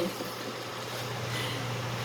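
Steady low hum over a faint even hiss, with no stirring or pan clatter.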